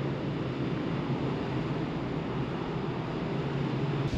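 Steady low drone of a large ferry under way at sea, mixed with wind across the open deck.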